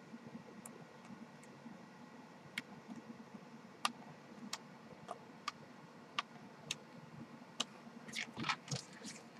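Glossy paper pages of a CD album's photo booklet being turned by hand: faint, irregular clicks of the paper, then a short rustling flurry of page handling near the end.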